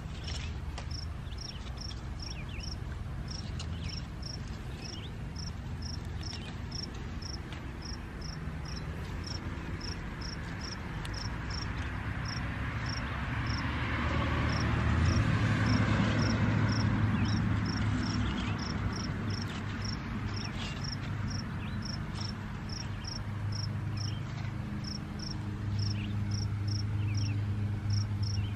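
A cricket chirping steadily, about two high chirps a second, over a low hum. In the middle a broad rushing noise swells up and fades away.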